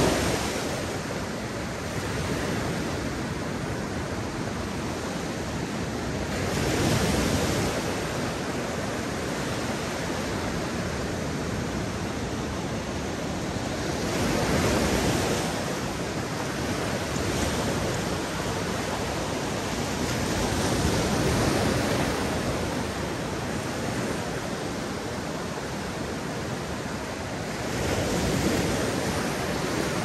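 Mediterranean surf washing onto a beach: a continuous rushing of water that swells each time a wave breaks, about every seven seconds.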